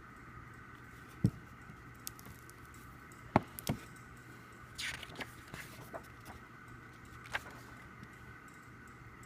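Handling noise from an album's packaging being turned over in the hands: a few sharp knocks and a brief rustling scrape over a steady background hum.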